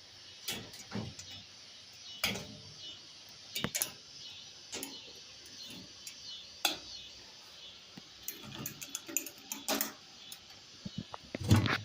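Removable steel pieces of a welding table being handled and fitted back into place: scattered metal knocks and clanks, with a quick run of small clicks around nine seconds in and a louder knock near the end.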